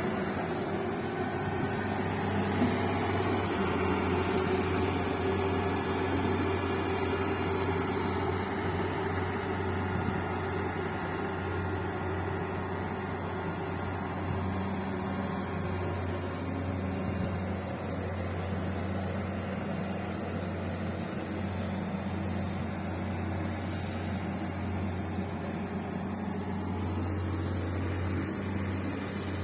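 Bulldozer engine running steadily under work with a constant low drone.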